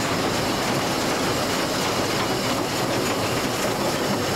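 Narrow-gauge steam locomotive running along the line, heard from inside its cab: a steady noise of wheels on rail and working machinery.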